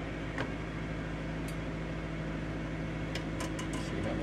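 Ninja countertop air fryer oven's fan running with a steady hum. A metal spatula clicks lightly against the cooking tray a few times, most often near the end.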